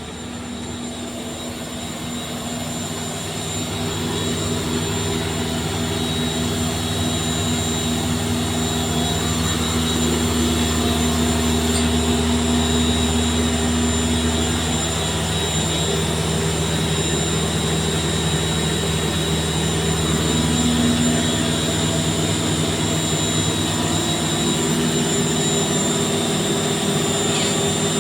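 A 30 kW (40 hp) screw air compressor running with a steady machine hum and a thin high whine, growing louder over the first few seconds.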